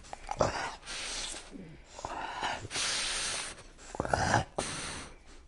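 French bulldog breathing noisily and snorting close to the microphone in a string of short, hissing breaths, with low grunts near the start and about four seconds in.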